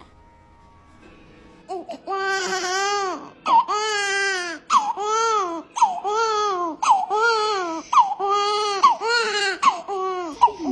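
Newborn baby crying: a run of about eight loud, high-pitched wails of roughly a second each, starting about two seconds in, each rising and falling in pitch, with quick breaths between.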